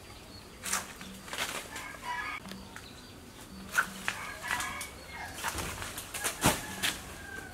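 Large banana leaves rustling and shaking as the plant is worked with a long bamboo pole. Several sharp knocks and snaps come through the rustle, the loudest about four seconds in and again about six and a half seconds in.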